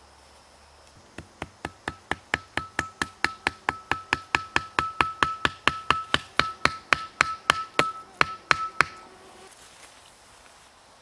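Wooden tarp peg being hammered into the ground: a fast, even run of about thirty knocks, roughly four a second, starting about a second in, growing louder and stopping shortly before the end.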